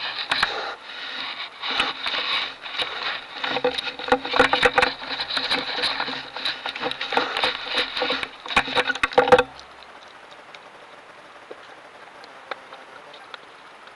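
A fallow deer's muzzle rubbing and knocking against a trail camera right at its microphone: a close, loud run of scuffs and clicks that stops suddenly about nine seconds in, leaving only a faint hiss.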